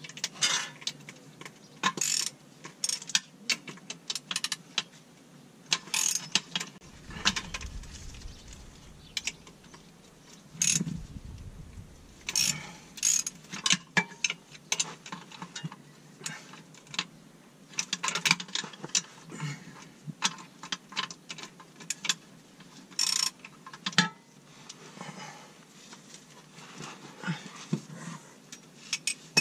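Hand socket ratchet clicking in short, irregular bursts as 14 mm transmission mount bolts are worked loose.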